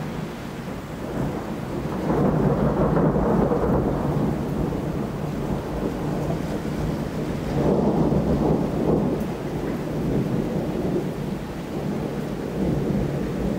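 Thunder rumbling in long rolls, swelling about two seconds in and again around eight seconds, over steady rain.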